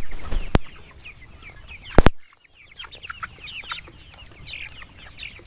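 A flock of 22-day-old broiler chickens peeping, with many short falling calls overlapping, as they crowd for water. There are sharp knocks at the start and about half a second in, and a louder one about two seconds in.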